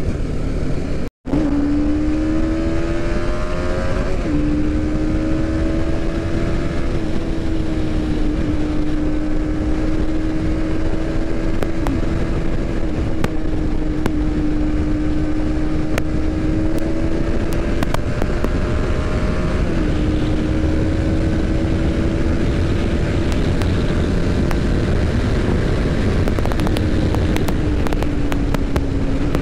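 TVS Apache RR 310's single-cylinder engine running at steady highway cruising speed, its drone holding one pitch with a few small shifts, under heavy wind and road noise. The sound cuts out for an instant about a second in.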